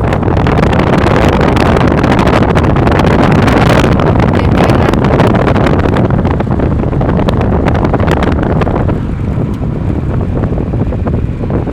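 Heavy wind buffeting the microphone over the rumble of a moving vehicle, a loud rushing noise that eases slightly near the end.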